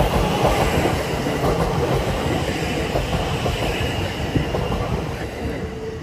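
Kintetsu 8A series electric train passing close by, its wheels clattering over the rails. The noise fades away near the end as the last car goes past.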